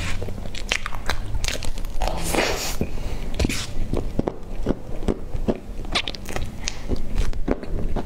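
Close-miked eating sounds of frosted sponge cake being eaten with a spoon: wet lip smacks and mouth clicks while chewing, with a spoon scooping cake in between.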